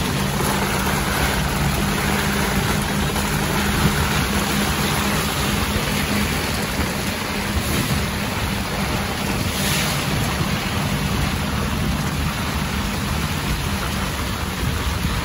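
Pick-up truck driving in heavy rain, heard from its tarp-covered back: a steady engine hum under a loud, even rush of wind and rain.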